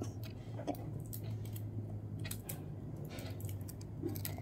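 Faint handling noises, a few soft scattered clicks and rustles, over a steady low hum.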